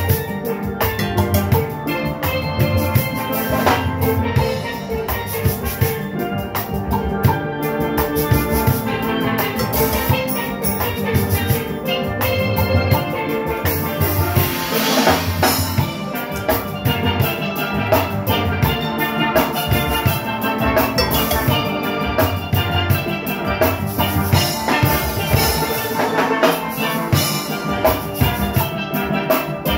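Steel orchestra playing live: steel pans carry the tune over an engine room of drum kit, timbales and metal percussion keeping a steady driving beat.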